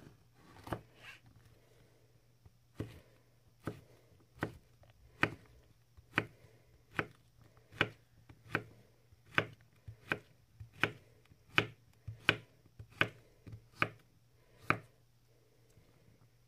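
Böker Outdoor Cuisine III santoku knife chopping zucchini on a wooden cutting board: a sharp knock each time the blade cuts through and meets the board. After a single chop and a short pause, the chops settle into an even rhythm of a little more than one a second, about sixteen in all, and stop a little before the end.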